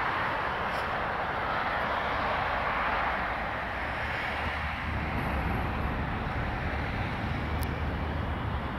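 Steady road traffic noise, a constant tyre hiss from passing cars, with a low rumble building about halfway through.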